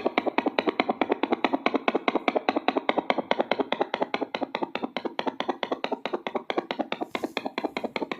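Fetal doppler's loudspeaker giving a fast, even pulsing, about seven pulses a second, which cuts off suddenly at the very end.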